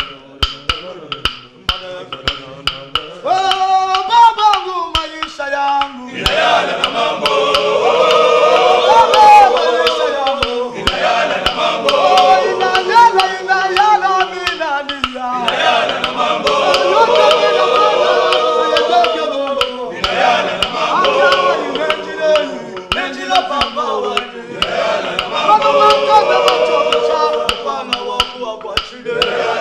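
A choir singing a praise song over a steady beat of sharp percussive clicks. A single voice leads for the first few seconds, then the full choir comes in about six seconds in, with short breaks between phrases every four to five seconds.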